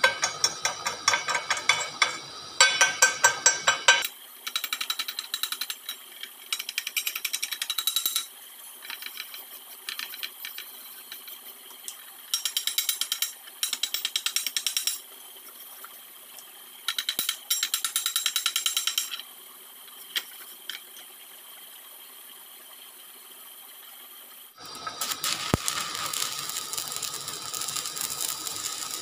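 Chipping hammer knocking slag off a fresh stick weld around a steel pipe nipple, in bursts of rapid metallic taps with short pauses between. About 25 seconds in, a stick-welding arc strikes and runs with a steady hiss and crackle.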